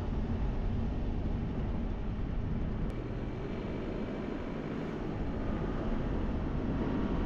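Steady low rumble of a vehicle driving, engine and road noise running on without a break.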